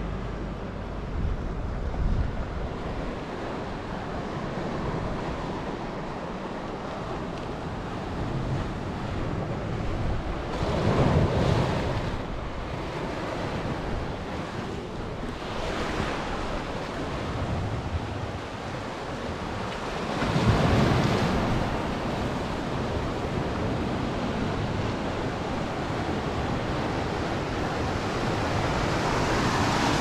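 Sea surf washing onto a rocky shore, swelling louder every few seconds as waves break, with wind buffeting the microphone.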